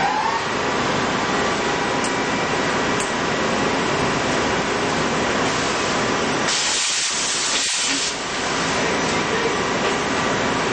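CNC lathe running with coolant spraying, a steady hiss under a faint steady machine whine. About six and a half seconds in, a louder, brighter hiss of spray lasts under two seconds, then the steady running resumes.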